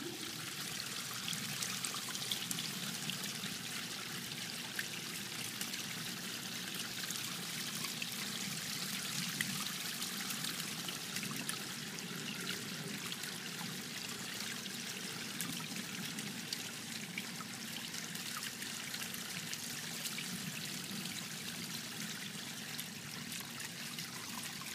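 Water from a small pond fountain splashing and trickling steadily onto the pond surface.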